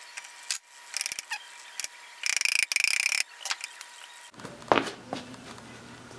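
Socket ratchet wrench clicking as it loosens a nut on a Hendey lathe's apron handle: a few scattered clicks, then a dense run of rapid clicks about two to three seconds in. A single sharp metal clink near the end.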